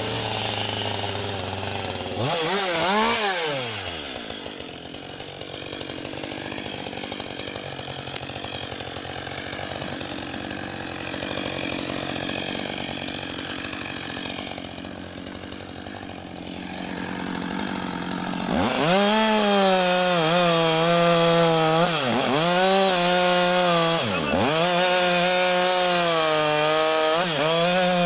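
Husqvarna 560 XP two-stroke chainsaw. It is revved once about two seconds in, runs quieter for a while, then goes to full throttle about two-thirds of the way through. Its pitch dips sharply several times as it cuts into wood.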